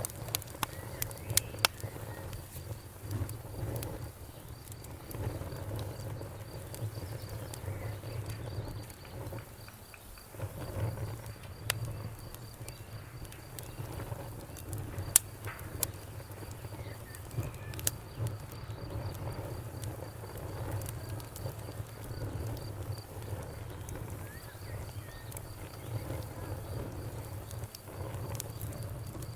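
Campfire crackling with scattered sharp pops, one louder pop about halfway through, over a steady fast-pulsing cricket chirp and a low steady hum.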